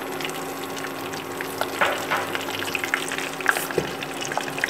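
Flour-coated chicken pieces deep-frying in hot oil in a stainless steel pot, sizzling steadily with scattered crackles and pops as chopsticks turn them. A steady hum runs underneath.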